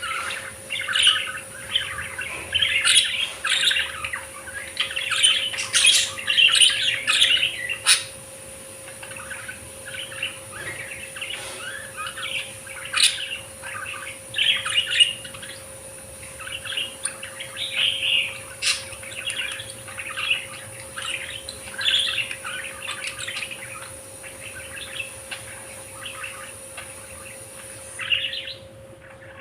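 Many budgerigars chirping and chattering together, busiest for the first eight seconds and then in scattered calls, with a faint steady hum underneath.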